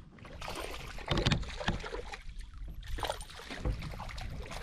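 Irregular splashing and sloshing of water around a small fishing boat, with a steady low rumble underneath.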